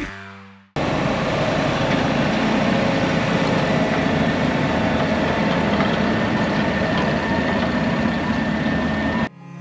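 A heavy farm vehicle's engine running steadily, with a faint steady whine over it. It cuts in abruptly just under a second in and cuts off shortly before the end.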